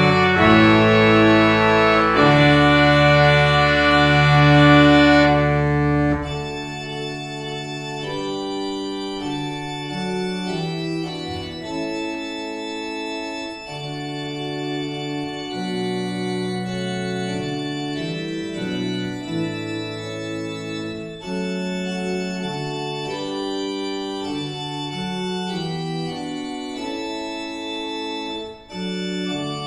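Church organ playing sustained chords. It is loud with deep pedal bass for the first six seconds, then drops abruptly to a softer registration without the bass.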